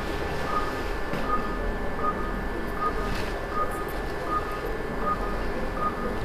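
Operating-room patient monitor beeping with each pulse: a short high beep repeating evenly about every three-quarters of a second, about 80 a minute, over a steady low hum.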